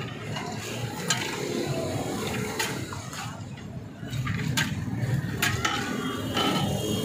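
Sharp knocks and clinks, about five spread over several seconds, over a steady low rumble: the clatter of glasses and utensils at a drinks stall.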